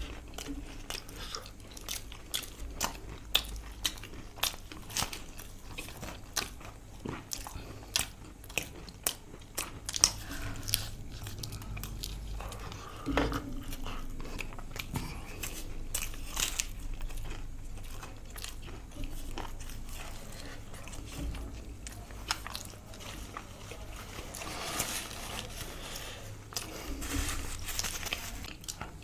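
Close-miked eating of a meal of samosas and chowmein: repeated bites and chewing with crisp crunches, many short sharp mouth clicks.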